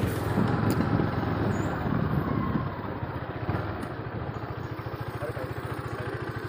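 A motorcycle engine idling, a steady, rapid, even low pulse.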